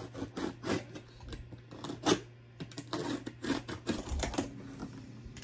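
Cardboard laptop box being opened: a box cutter slitting the tape, then the cardboard flaps and inner packing scraping and knocking as they are pulled out. A run of short, irregular clicks and scrapes, with one louder knock about two seconds in.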